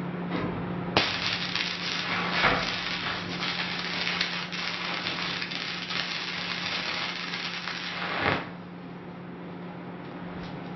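Stick (MMA) electrode arc welding on thin sheet steel: the arc strikes sharply about a second in, crackles and sputters steadily for about seven seconds, then cuts off. A steady low hum runs underneath.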